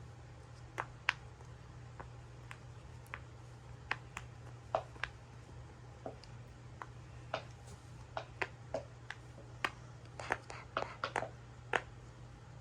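Silicone pop-it fidget toy bubbles being pressed through, giving short sharp pops at an irregular pace that come more thickly near the end.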